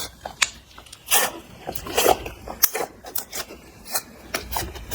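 Clear slime mixed with makeup and glitter being squished and stretched by hand, giving irregular sticky crackles and pops, a few each second.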